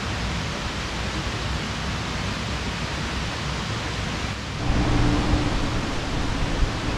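Steady, even rushing noise of the outdoors. About four and a half seconds in it cuts to a quieter background with a low steady hum.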